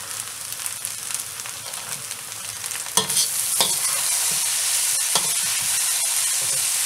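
Pad thai rice noodles sizzling in a hot wok as they are tossed with metal tongs, the tongs clacking against the wok a few times. The sizzle gets louder about three seconds in.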